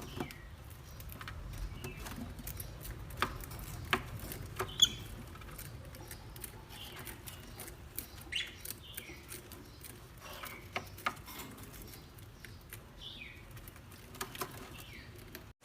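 Faint, scattered short bird chirps, some falling in pitch, with occasional sharp clicks and light rustling.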